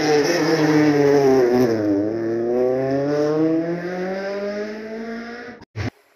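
Peugeot 208 rally car engine through a hairpin: the note drops as the car slows round the bend, then rises steadily for a few seconds as it accelerates away, fading, and cuts off suddenly near the end.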